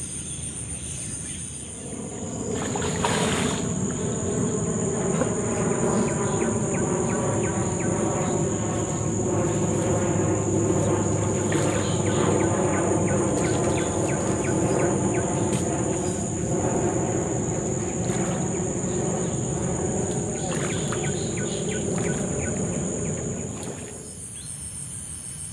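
Insects calling in a steady high shrill. From about two seconds in, a louder steady drone made of several held tones lies over them and cuts off suddenly near the end.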